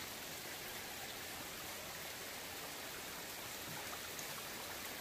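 Water of a flowing stream making a steady, even rush.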